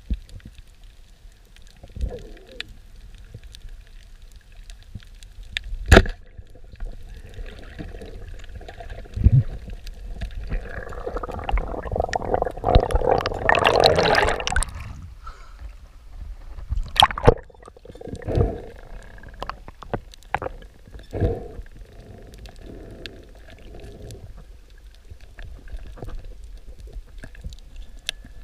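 Underwater sound picked up by a diver's camera: a constant low rush of water with scattered sharp knocks and clicks. About eleven seconds in, a loud churning rush of water builds for a few seconds, as the camera swings fast through the water, then falls away.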